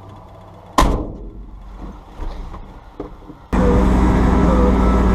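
A vehicle door slams shut, a single sharp bang less than a second in. About three and a half seconds in, loud music comes on suddenly and keeps going.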